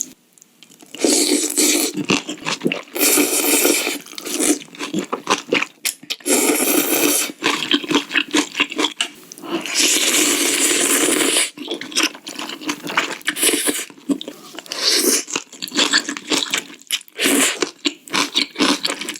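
Spicy noodle soup being eaten close to the microphone: repeated slurps in noisy stretches of up to about a second and a half, between bouts of chewing with crunchy bites.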